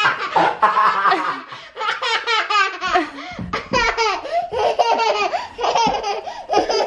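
A toddler and a man laughing hard together, the child's laugh coming in quick repeated pulses.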